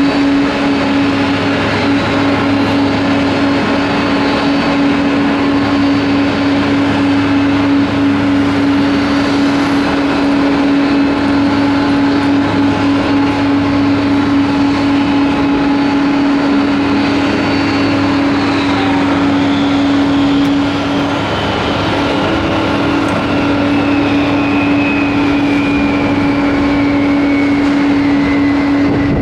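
Jet airliner engines running: a loud, steady hum with a high whine that falls slowly in pitch over the last ten seconds.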